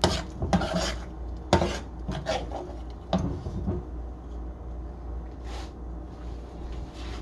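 Kitchen utensils scraping and knocking against cookware in a few short, irregular strokes, mostly in the first few seconds, with one more near the middle.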